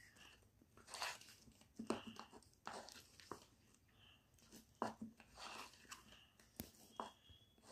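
Metal spoon beating thick gram-flour (besan) jalebi batter in a plastic bowl: faint wet slaps and scrapes at an irregular pace of roughly one a second, with a few sharp clicks of the spoon against the bowl.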